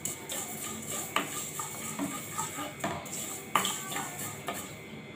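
A spatula stirring and scraping mustard seeds in hot oil in a nonstick kadai, with a few sharp knocks against the pan.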